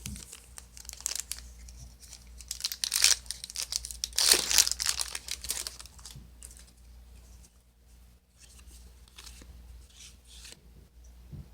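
Foil Yu-Gi-Oh booster pack wrapper being torn open and crinkled, loudest in a run of dense crackling about three to six seconds in, followed by fainter, sparser rustling.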